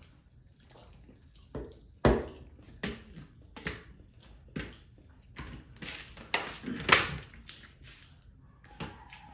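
Eating by hand: wet squelches and smacks as fingers mix rice with fish curry on steel plates and mouthfuls are eaten. About two seconds in, the sounds start coming as a string of sudden, separate smacks, one every half second to a second, and they thin out after about seven seconds.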